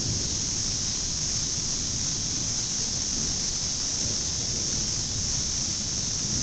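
Steady high hiss over a low, uneven rumble of wind on the microphone.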